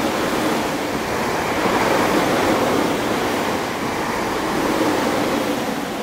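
Southeastern electric multiple-unit passenger train passing close by at speed: a loud, steady rush of air and wheel noise as the carriages sweep past.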